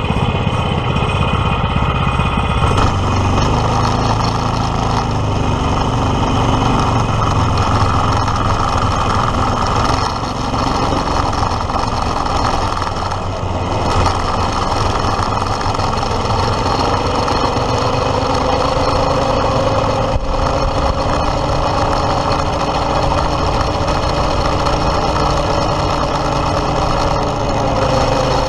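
Stock Predator 212 single-cylinder four-stroke engine running under load as the kart drives, loud and continuous, its pitch slowly rising over the second half.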